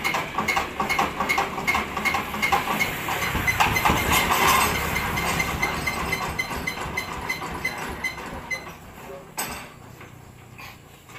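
Diesel engine of a mobile rice-milling vehicle running just after a hand-crank start, with a regular knocking beat of about three a second. It grows fainter over the last few seconds.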